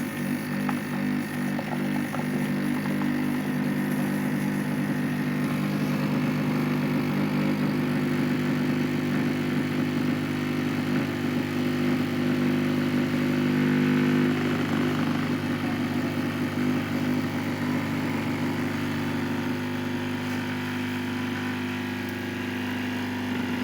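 Nescafé Dolce Gusto Mini Me capsule machine brewing a hot chocolate pod: its pump buzzes steadily as it pushes hot water through the capsule, the tone shifting slightly about halfway through.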